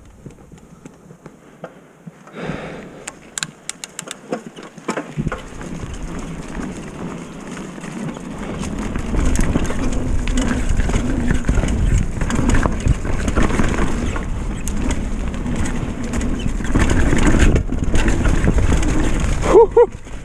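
Retro downhill mountain bike riding down a leaf-strewn dirt trail: tyres rolling over leaves and dirt, with clatter and knocks from the bike. It gets steadily louder as speed builds, with low wind rumble on the microphone. A quick run of sharp clicks comes a few seconds in.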